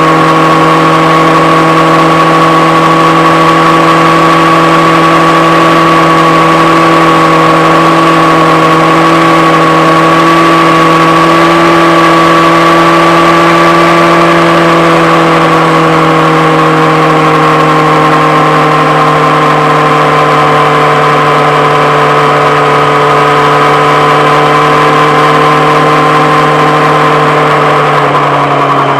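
Yamaha FZ6-N's 600 cc inline-four running through a Two Brothers aftermarket exhaust, very loud and held at a steady engine speed. The pitch eases slightly lower over the second half.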